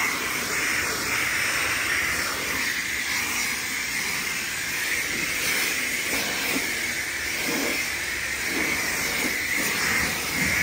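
High-pressure rinse wand of a coin-operated self-serve car wash spraying water onto a car: a steady hiss.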